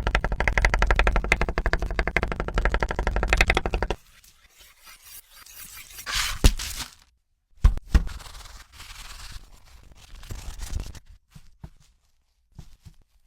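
Food-preparation sounds: a fast, even run of sharp knocks for about four seconds, then quieter scraping with two sharp cracks.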